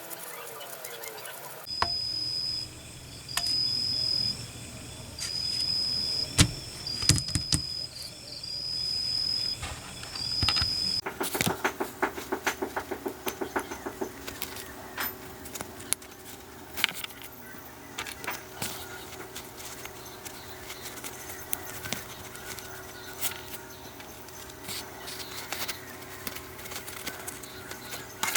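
A small electric power tool whining in about six short runs, each about a second long. After that come many quick clicks and taps of small metal parts being worked and handled.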